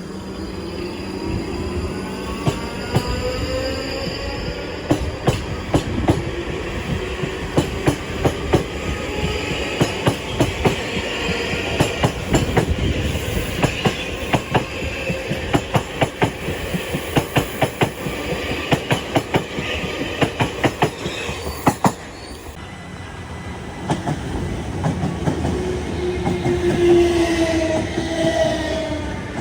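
A train passing close by. Its wheels click in rapid runs over rail joints, with whining tones that slide in pitch, and a louder squealing tone about a second or two before the end.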